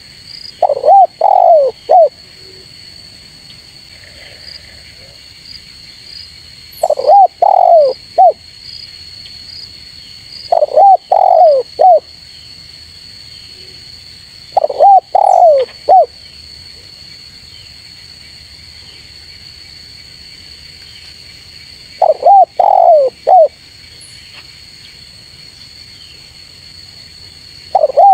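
Spotted dove cooing: a quick phrase of three or four coos, repeated about six times with gaps of several seconds between. A faint steady high-pitched tone runs behind.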